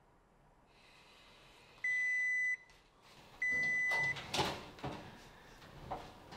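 Kitchen appliance timer beeping: two long, steady electronic beeps about a second and a half apart. Then a few knocks and clatters of things being handled at the counter.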